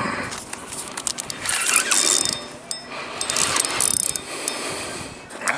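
Fishing reel working against a hooked channel catfish: bursts of rapid mechanical clicking and whirring, loudest a little under two seconds in and again around three to four seconds in.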